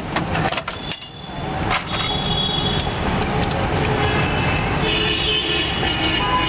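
Busy roadside traffic noise: vehicle engines running steadily, with a long held pitched tone, such as a horn, coming in about five seconds in.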